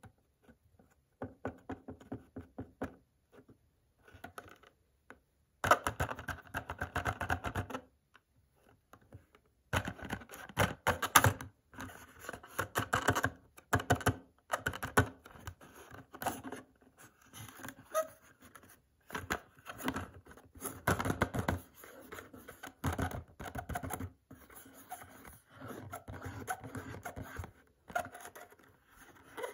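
Fingernails tapping, scratching and crinkling the clear plastic blister and cardboard backing card of a sealed Hot Wheels toy-car package, in irregular bursts of crackly clicks.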